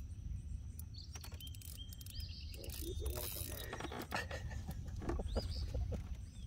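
Spinning fishing reel clicking irregularly under load as a hooked channel catfish is played on the rod, over a low steady rumble.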